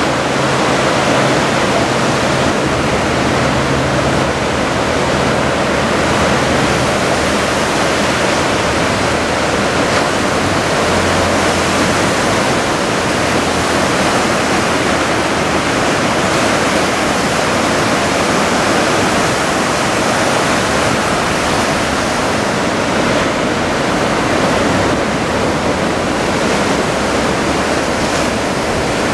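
Steady noise of heavy surf breaking, from big typhoon swell.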